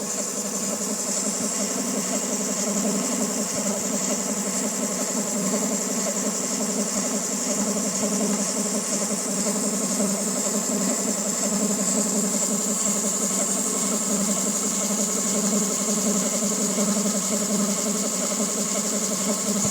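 Honda D16Y8 engine of a 2000 Civic EX idling, with a steady high-pitched whine over the running sound. The owner calls the idle noisy and rough and suspects the cam pulley, the timing belt tensioner or a bearing.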